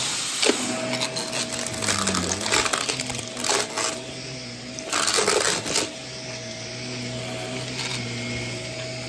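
A small electric motor humming steadily, with several short scratchy, rustling noises over it; the longest comes about five seconds in.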